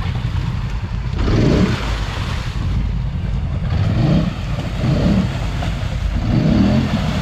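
ATV engine revving in repeated surges as it pushes through deep mud, its tyres churning mud and water.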